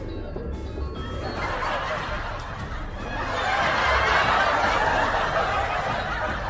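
Many people laughing together, like a laugh track. The sound swells in about a second in and grows louder again halfway through.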